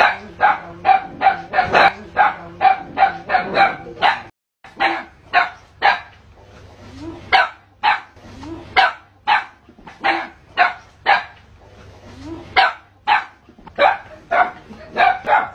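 Dog barking repeatedly at a cobra it is confronting. The barks come quickly, about four or five a second at first. They break off briefly about four seconds in, then carry on more spaced out, about two a second.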